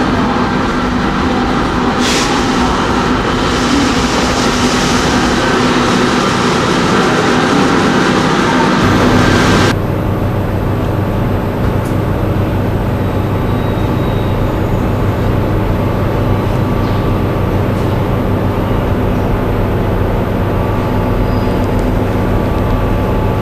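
SNCF BB 17000 electric locomotive running with a steady electrical hum as it moves along the platform. About ten seconds in the sound changes suddenly to a deeper, steady rumble of a locomotive and coaches rolling slowly past.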